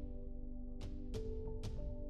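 Background music: held chords that shift pitch every second or so, with sharp percussion hits.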